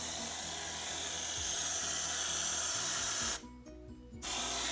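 Aerosol can of whipped cream spraying: one long hiss of about three and a half seconds that cuts off suddenly, then a second short spray near the end.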